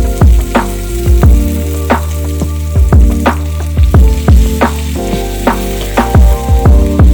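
Background music with a steady beat and sustained chords, over kingfish slices sizzling as they fry in hot oil.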